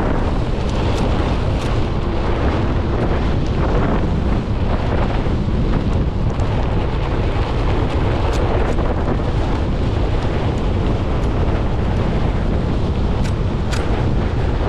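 Loud, steady wind rumble on the microphone as a Onewheel GT-S electric board rolls over a dirt and gravel trail, with scattered sharp clicks throughout.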